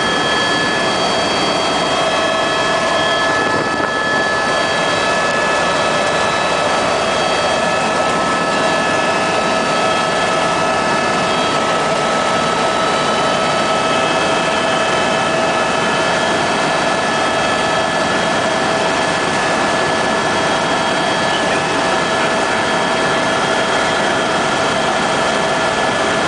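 Helicopter in flight heard from inside the cabin: a steady, loud rush of engine and rotor noise with several high, steady whining tones over it.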